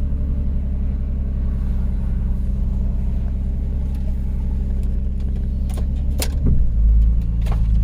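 Nissan Murano's 3.5-litre V6 idling steadily. About six and a half seconds in, the idle note drops and grows heavier as the CVT is shifted into gear, with a few light clicks around it.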